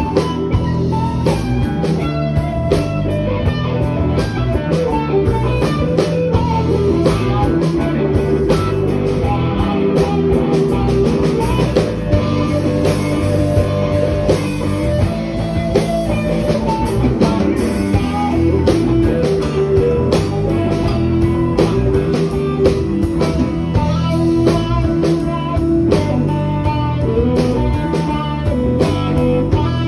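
Live electric blues-rock band playing through a stage PA: electric guitar and bass guitar over drums keeping a steady beat.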